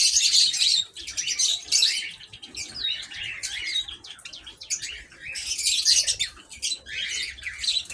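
A mixed flock of small aviary birds chirping and chattering all at once, many overlapping calls with louder bursts in the first second and again about six seconds in.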